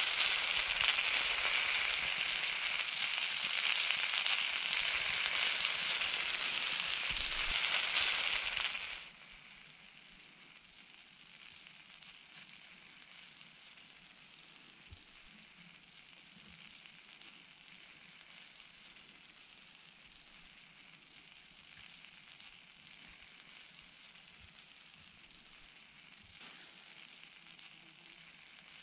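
Quail sizzling on a hot steel griddle plate over a wood fire, a dense, loud sizzle that cuts off suddenly about nine seconds in, leaving only a faint steady hiss.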